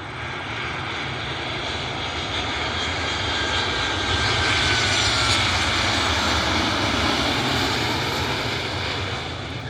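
Jet airliner on its landing approach passing by, its engine noise swelling to a peak about halfway through and then fading, with a whine that drops in pitch as it goes past.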